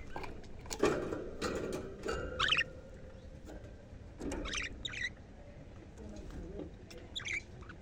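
Budgerigars chirping in short, warbling bursts, three or four times, with a louder knock about a second in.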